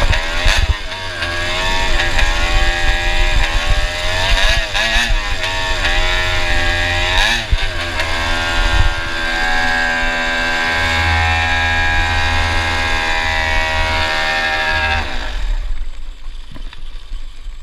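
Go-kart engine with a stinger exhaust running under the driver, its pitch dipping and climbing again a few times as the throttle is lifted and reapplied, then held steady before it cuts off about fifteen seconds in.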